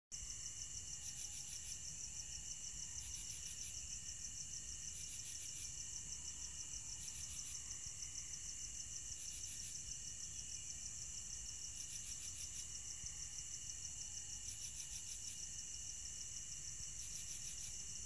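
Night chorus of crickets: a steady high trill, with a higher chirp in short pulsed bursts about every two seconds, over a faint low rumble.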